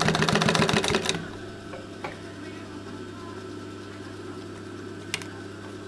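Singer 31K15 industrial sewing machine stitching rapidly through thick material, driven by a slack belt, and stopping about a second in. Afterwards its motor hums steadily, with a couple of faint clicks.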